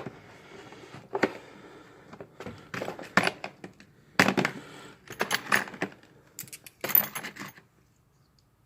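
Metal sockets and tools clinking and clattering in irregular bursts as someone rummages through them for the right size.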